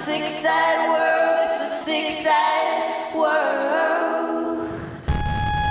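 A woman singing long, sustained melodic phrases with almost no accompaniment. About five seconds in the singing stops, and a steady held note over a low rumble takes over.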